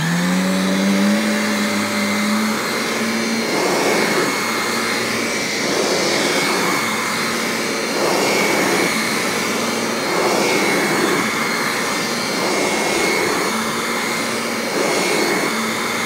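Kirby G5 upright vacuum's motor running in its portable hand-vacuum setup, with the hand tool fitted to the base. It spins up at the start and then runs steadily with a constant high whine, swelling slightly every couple of seconds. The owner finds this motor weak and due for a rebuild.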